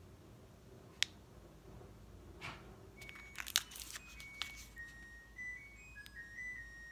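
Crinkles and crackles of a snack-bar wrapper being handled and turned over in the hands: a few sharp crackles, once about a second in, again at about two and a half seconds, and a quick cluster at three and a half seconds.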